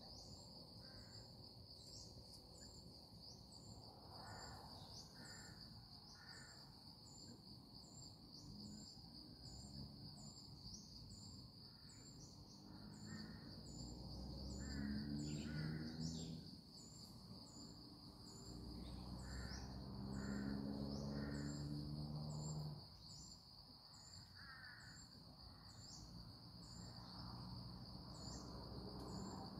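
Outdoor ambience: a steady high insect drone with fast, regular ticking, over which crows caw in short groups of two or three. A low hum swells twice in the middle and is the loudest sound.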